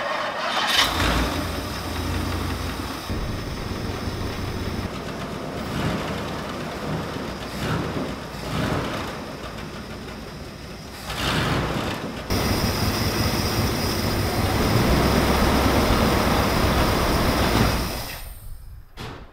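1960 Lincoln's 430 big-block V8, fed by gas poured down its two-barrel carburettor after 35 years of sitting, starting and running. It gets louder about twelve seconds in and fades out near the end.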